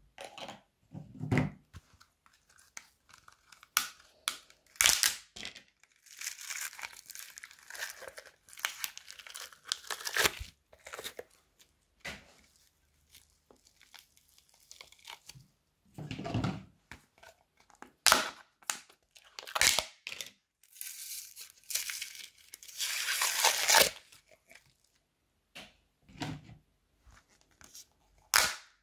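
Hands squeezing, stretching and pulling apart slime, clay and crunchy foam-bead slime (floam), making crackling, crinkling and tearing sounds in irregular bursts, some lasting several seconds, with a few short sharp clicks and duller squelches. Near the end a small plastic slime tub's lid is pried off.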